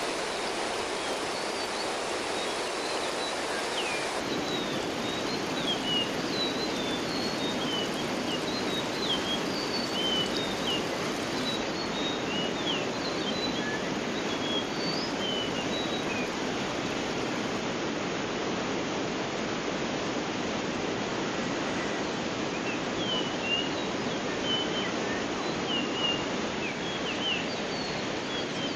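Steady rush of a stream or small waterfall, with many short, high bird chirps and quick whistled notes over it, pausing for a few seconds past the middle and returning near the end.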